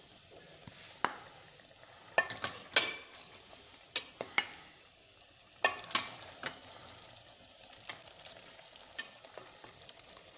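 A spoon stirring thick chicken curry in a metal pot, with scattered knocks and scrapes against the pot. Underneath is a soft sizzle of the gravy bubbling in its ghee during the final frying, as the oil rises to the top.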